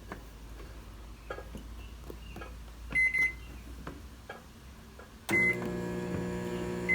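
Microwave oven being set going: a few light clicks and knocks, two keypad beeps about three seconds in, then another beep and the oven starts running with a steady hum about five seconds in, with one more beep near the end.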